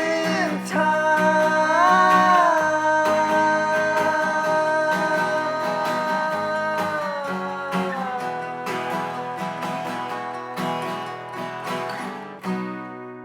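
Acoustic guitar strumming under a long held sung note on "wasting"; the playing thins out toward the end, and a last strum rings out and fades.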